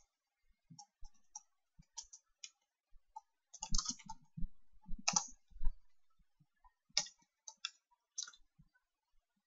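Computer keyboard keys being typed in irregular short bursts, mixed with a few mouse clicks.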